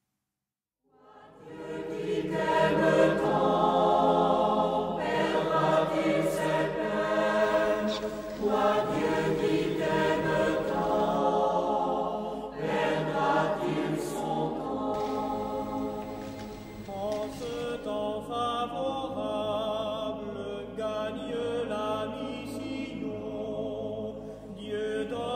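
Choir singing, many voices together on long held notes, fading in about a second in.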